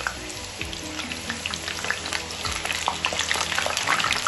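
Potato chunks deep-frying in hot oil in a pan: a dense crackling sizzle full of small pops, getting louder near the end.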